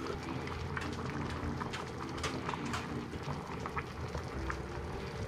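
Pot of cabbage rolls simmering in dashi broth: steady bubbling with scattered small pops and ticks.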